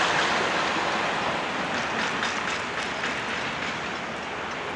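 Freight train of covered hopper cars rolling away on the rails, a steady wheel-and-rail rumble with a few faint clicks, slowly fading as it recedes.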